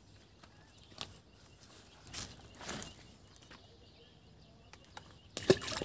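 Water splashing in a catfish pond as balls of homemade fish feed are thrown in: a few soft splashes, then a loud plop and splash near the end.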